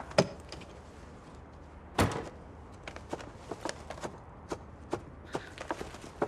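A front door: the handle and latch click as it opens, and the door shuts with a single loud knock about two seconds in. Footsteps follow, a steady run of sharp clicks on a hard floor.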